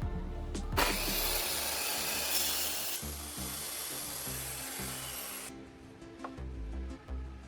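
Circular saw cutting through wood: a loud, rushing cut starts about a second in and stops abruptly about five seconds in. Background music plays throughout.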